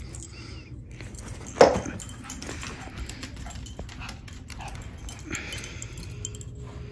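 Small dogs playing fetch with a toy: one loud bark about one and a half seconds in, with a softer sound near the end and claws clicking on the floor as they run.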